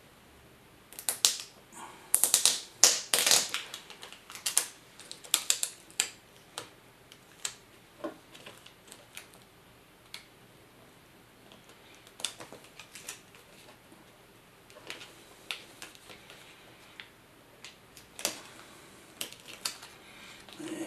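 Irregular sharp clicks and taps of hands and a tool working on a laptop's plastic screen assembly. They are bunched and loudest in the first few seconds, then come scattered.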